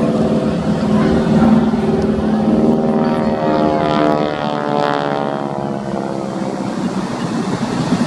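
Propeller-driven aircraft flying past, its engine tone sweeping as it goes by, loudest a second or so in and easing off in the last few seconds.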